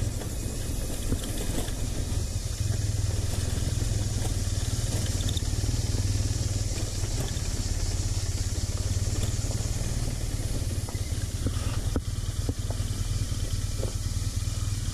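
Motorcycle engine running steadily at low speed while riding a rough gravel track, with a steady hiss over it and a few light ticks near the end.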